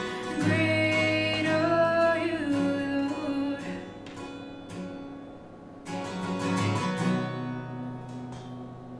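Acoustic guitar being strummed, with a woman singing over it for the first few seconds. A last strum comes about six seconds in, and the closing chords ring out and fade.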